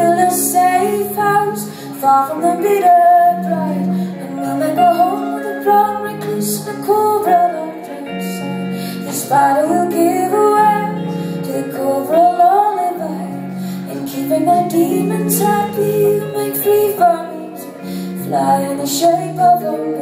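A woman singing live over acoustic guitar chords, her voice gliding between long held notes.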